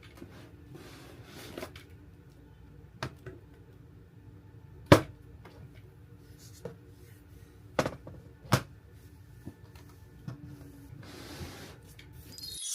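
Scattered sharp clicks and taps of makeup packaging being handled and opened, about seven in all, the loudest about five seconds in, over a faint steady low background.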